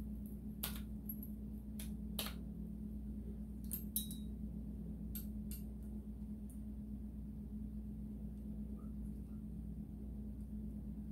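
Scattered light metallic clicks and taps of small parts and hand tools being handled, several in the first six seconds, over a steady low hum.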